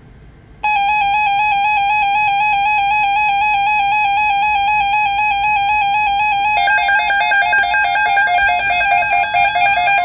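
Weather alert radio's built-in alarm starting about half a second in, a loud buzzy electronic tone that pulses rapidly, signalling an incoming National Weather Service alert. At about six and a half seconds a second radio's alarm joins on a slightly lower tone, the two sounding together.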